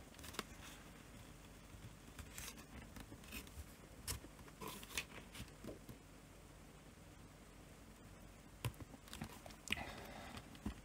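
Faint, scattered clicks and scrapes of a plastic playing card being worked under the edge of a ThinkPad E14 laptop's LCD panel, prying the panel off the adhesive that holds it in the lid.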